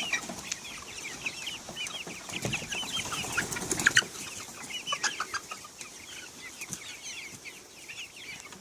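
A flock of pullets (young hens) clucking, many short calls overlapping without pause, with a few louder, sharper calls about four seconds in.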